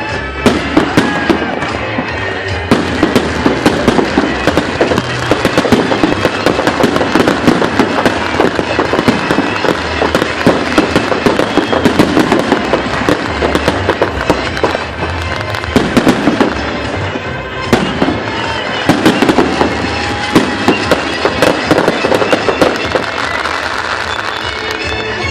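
Fireworks going off in a dense barrage: continuous rapid crackling and popping with many sharp bangs, easing briefly twice in the second half.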